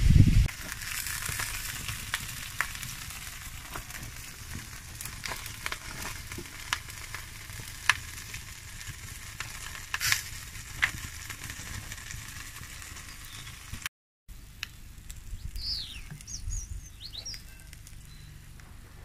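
Sesame buns toasting in a hot pan over a wood fire: a steady sizzle with scattered sharp pops and crackles. After a brief break near the end, a few bird chirps are heard.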